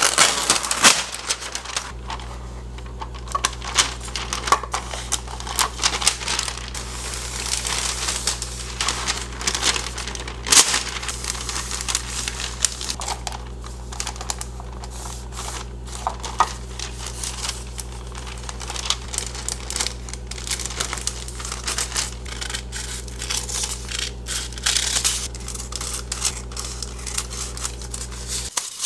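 Sheet of parchment paper crackling and rustling as it is torn off, folded and creased over a plastic box, and cut into squares with scissors, with many sharp crinkles and clicks throughout.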